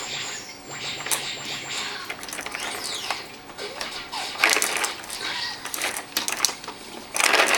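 A baby's toy pieces being handled: irregular clicks, taps and scraping, with louder rustling scrapes about halfway through and near the end.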